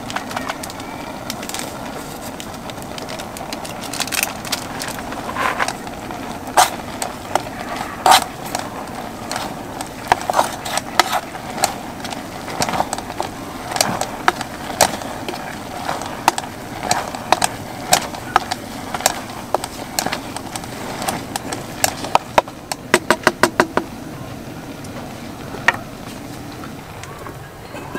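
Chopsticks stirring noodles in an aluminium military mess-kit pot, clinking and tapping sharply and irregularly against the metal, over the steady hiss of a gas camp stove burner. A little before the end comes a quick run of about ten rapid taps.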